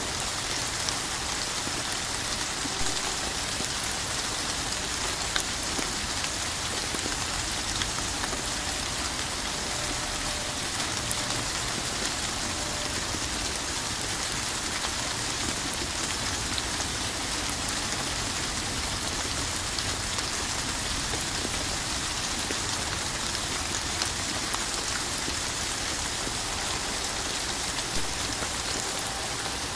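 Steady rain falling, an even dense hiss with the odd louder drop standing out now and then.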